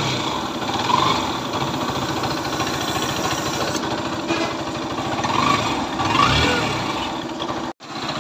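Bajaj Pulsar NS160 FI's single-cylinder engine running at idle after repair, with a few short throttle blips that rise and fall. The running is the check that the bike is fixed: a new oil pump has been fitted, the low oil flow having caused piston and crankshaft noise. The sound cuts out for an instant near the end.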